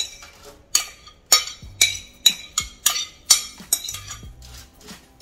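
Broccoli florets tipped by hand from a bowl onto a foil-lined metal baking sheet: a run of sharp taps and clinks, about two a second, growing fainter near the end.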